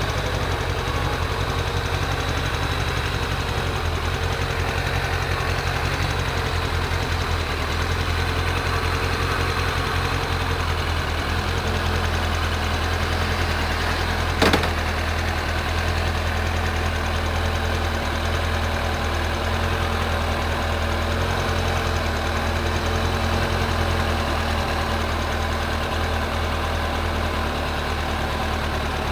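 An engine running steadily at an even speed, with one sharp click about halfway through.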